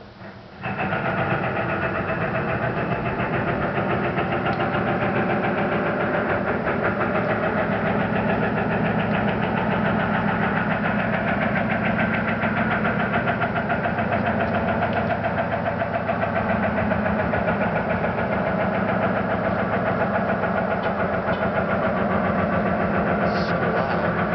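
Loud, steady mechanical rumbling drone with a fast pulse and several held tones, like a large engine running; it starts suddenly about a second in and fades out near the end. Its source is unidentified.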